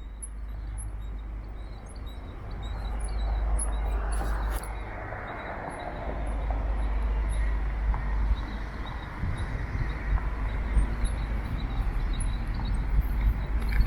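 Outdoor city street ambience: a steady wash of traffic noise over a low rumble, with faint, regularly repeated high chirps.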